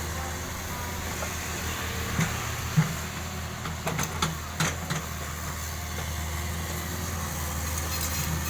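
Excavator engine running steadily, with a few sharp knocks or clanks between about two and five seconds in.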